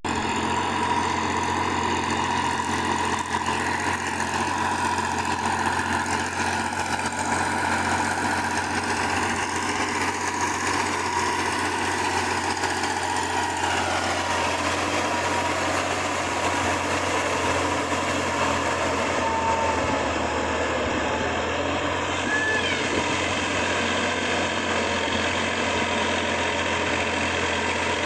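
Massey Ferguson 9500 tractor engine running steadily under load while it drives a 2-metre rotavator through wet paddy mud.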